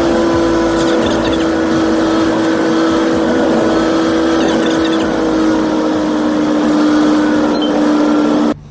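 Steady motor drone with a strong hum that sinks slightly in pitch, cut off suddenly near the end.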